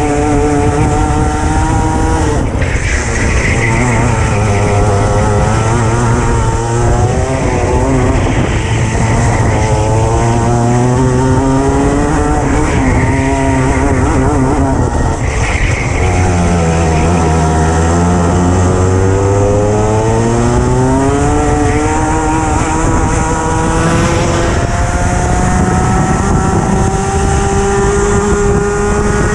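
Racing kart engine heard from on board at full race pace, its pitch climbing along the straights and dropping as the driver lifts for corners, several times over, with the deepest drop about halfway through.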